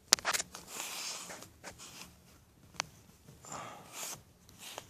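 Handling noise from a camera being moved and set in place: a few sharp clicks and knocks, one just after the start, one in the middle and one near the end, with short breathy rustling between them.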